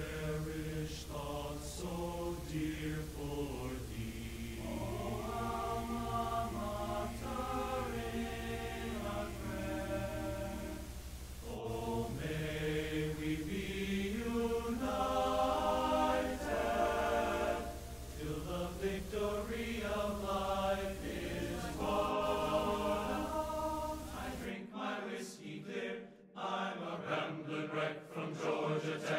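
Choir singing, the voices holding notes and moving together, over a steady low hum. About 25 seconds in, the hum and hiss drop away and the singing goes on on its own.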